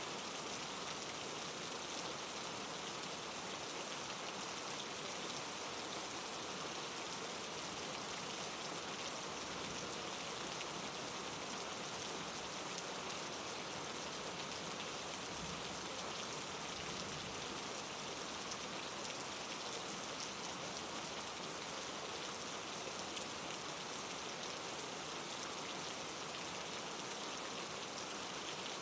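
Steady rain falling, with fine pattering drops and an even hiss.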